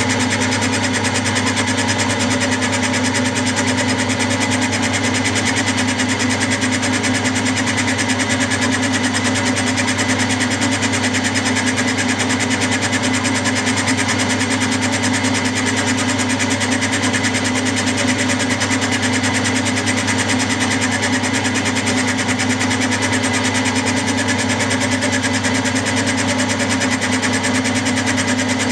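Milling machine running steadily while a 60-degree dovetail cutter cuts the bedways of a model lathe bed under a slow, even feed: a constant mechanical hum with no change in pitch or level.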